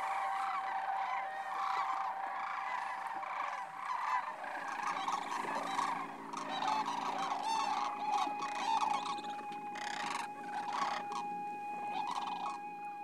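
A flock of sandhill cranes calling, many overlapping calls at once.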